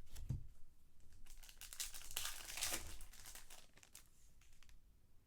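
Trading card pack wrapper being torn open and crumpled, a dense crinkling for about two seconds that fades out, with a soft thump at the start.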